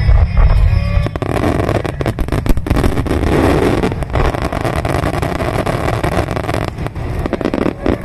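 Rapid barrage of firework shells bursting in a finale: many close-spaced bangs and crackles over a continuous rumble, after a song fades out in the first second.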